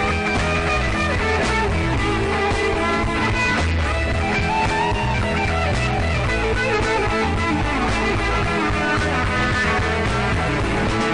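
Live rock band playing an instrumental passage led by guitar, with no singing.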